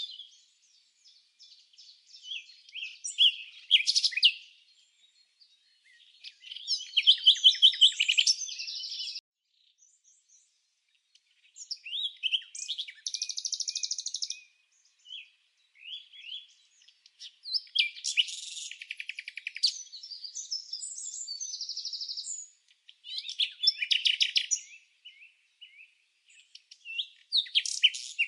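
Songbirds chirping and trilling in separate phrases of a second or two, with short pauses between them.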